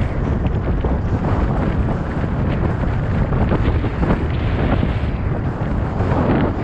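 Wind buffeting the microphone of a GoPro action camera on a moving bicycle: a loud, deep, steady rushing.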